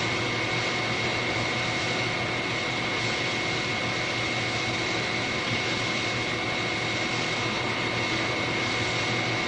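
Steady hiss with a thin, high, steady whine running under it: the background noise of an old recording of speech, heard in a pause between sentences.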